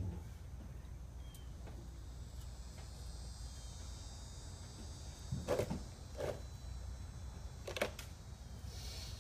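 Quiet outdoor background: a steady low rumble with a faint, steady high-pitched whine over it. It is broken by a few short scuffling noises: about five and a half seconds in, again about a second later, and near eight seconds.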